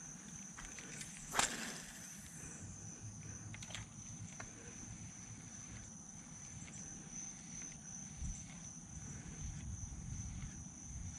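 Steady high-pitched drone of insects, with one sharp sound about a second and a half in and a few faint clicks after it.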